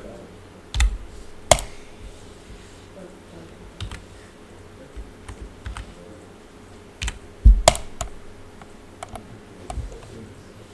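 Computer keyboard keys and clicks pressed at an irregular pace, with a few sharper, louder taps about a second and a half in and again about seven and a half seconds in.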